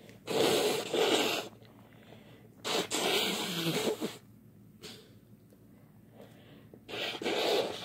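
A person's loud nasal bursts of breath into a handkerchief, sneezing and blowing. There are three bursts: one just after the start in two quick parts, one about three seconds in with a voiced falling sound in it, and one near the end.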